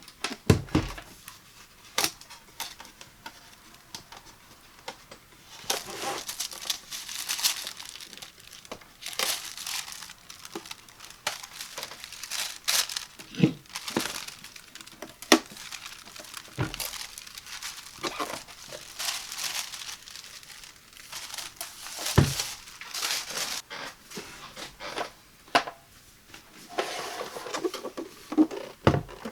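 Packaging being handled during an unboxing, crinkling and rustling in stretches, with a few sharp knocks and taps in between.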